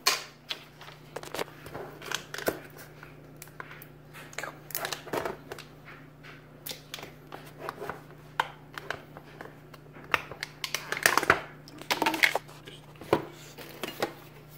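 Kitchen containers and packages being handled: a string of short knocks, clicks and crinkles, busiest about eleven to twelve seconds in, over a steady low hum.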